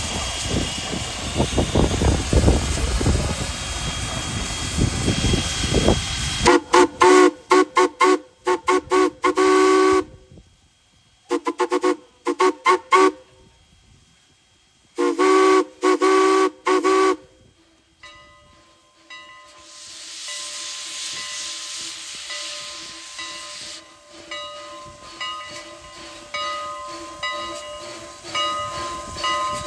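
Strasburg Rail Road No. 89, a 2-6-0 steam locomotive, first hisses and rumbles. Its steam whistle then sounds in three groups of quick toots, with a hiss of steam a few seconds later.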